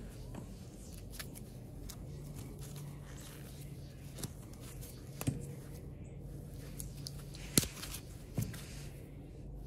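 Vinyl electrical tape being pulled off the roll and wrapped around cord wires by gloved hands, with handling rustle and a few sharp clicks, the loudest about seven and a half seconds in.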